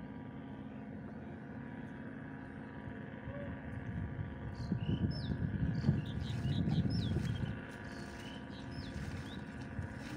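Small birds chirping a dozen or so short sliding calls in the middle, over a steady low mechanical hum and a low rumble that swells for a few seconds and then drops back.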